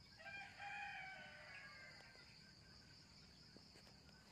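A rooster crowing once, one call of about two seconds starting just after the beginning, over a steady high-pitched hum.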